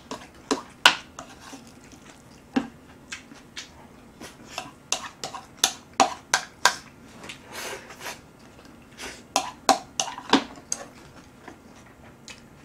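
Eating sounds picked up close: chopsticks clicking and scraping against a bowl of jjajang noodles and fried rice as they stir and pick up food, in many sharp, irregular clicks, with chewing and mouth noises between them.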